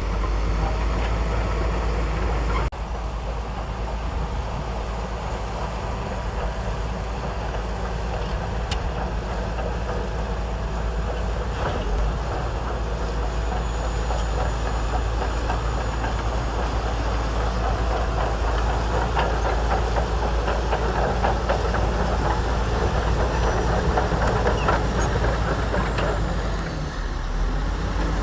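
Shantui DH17C2 crawler bulldozer running, its diesel engine steady under a dense, continual clatter.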